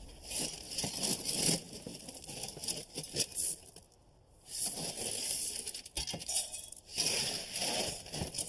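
Shovelfuls of 3/4-inch crushed stone scooped and poured into a fire pit, the gravel rattling and crunching in several bursts with short pauses between.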